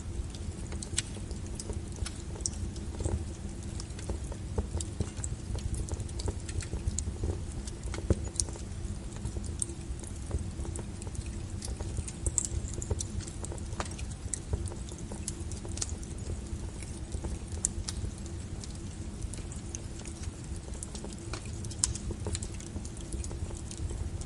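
Wood fire burning with a steady low rumble and scattered sharp crackles and pops at irregular intervals.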